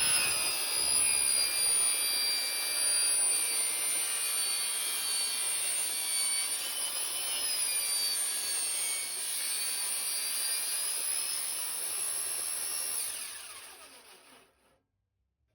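Table saw cutting 16-gauge sheet metal, a steady high whine that wavers a little in pitch, then dies away near the end.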